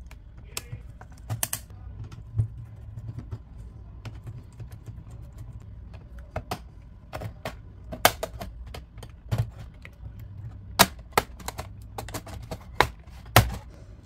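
Irregular sharp plastic clicks and snaps as the clips of a Dell Latitude 3450's bottom cover are pried loose with a plastic pry tool, coming thick and fast over the second half, over a low steady hum.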